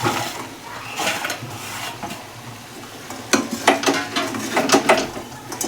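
A spoon stirring and scraping through thick turmeric halwa in a pan as jaggery is mixed in, with several knocks of the spoon against the pan.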